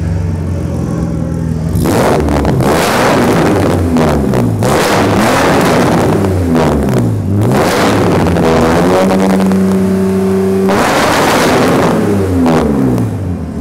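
BMW E24 635CSi's straight-six through a straight-piped Magnaflow exhaust, revved from idle several times: quick rises and falls in pitch, one rev held high for about two seconds, then back to idle near the end.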